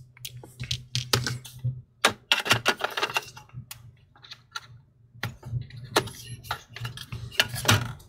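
Small, irregular clicks and taps of a precision Phillips screwdriver working the laptop CPU fan's screws, and of the plastic fan being handled and lifted out of the chassis.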